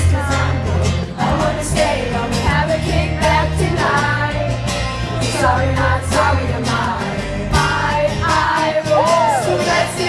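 Live pop-rock band performing: sung vocals over electric guitar and drums.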